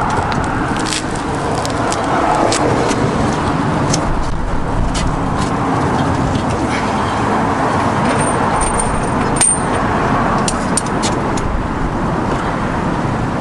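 Steady loud background rumble with scattered light metallic clicks and clinks from hand tools working the sway bar hardware.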